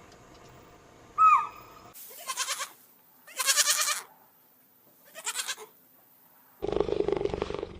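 Livestock bleating: three wavering calls, after a single short, sharp falling call about a second in. Near the end a louder, rough, continuous animal sound cuts in.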